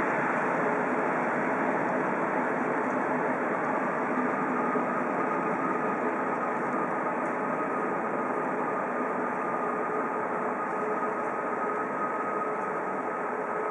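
Double-deck regional passenger train creeping into a station: a steady rumble and hum, with a faint steady whine coming in a few seconds in.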